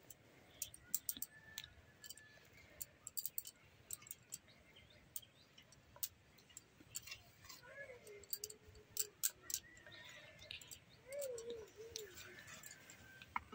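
Fried onions (beresta) being sprinkled by hand over a layer of rice in the pot: faint, scattered light clicks and crackles throughout. A few faint chirps and wavering calls sound in the background.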